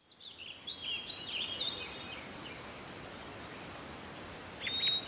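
Small birds chirping and twittering over a steady outdoor background hiss, fading in at the start: a flurry of calls in the first two seconds, a single short call about four seconds in, and a louder call near the end.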